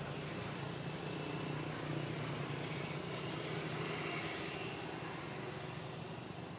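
A motor vehicle's engine running steadily: a low hum under a hiss, swelling a little in the middle and easing near the end.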